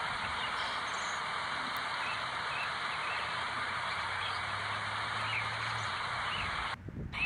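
Outdoor park ambience: a steady background rush of noise with faint, short bird chirps scattered through it. The sound drops out briefly near the end.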